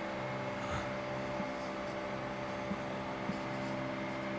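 A steady machine hum of several fixed tones from room equipment, with a few faint scratches of a marker writing on a whiteboard.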